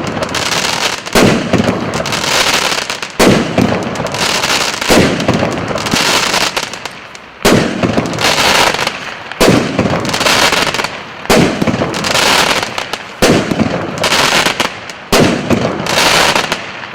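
A 48-shot, 1.25-inch consumer fireworks cake firing its shots one after another, a sharp bang about every second. Each bang is followed by a second or so of hissing, crackling noise as the burst opens.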